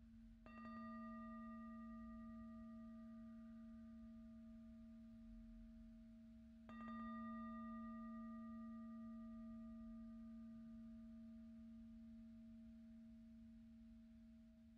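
Singing bowl struck softly twice, about half a second in and again about seven seconds in. Each strike rings on at one steady low pitch, with fainter higher overtones that fade slowly.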